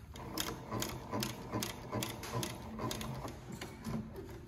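Yamata FY-335A walking foot cylinder bed industrial sewing machine stitching slowly through four layers of denim, each stitch a short mechanical knock, about two to three a second.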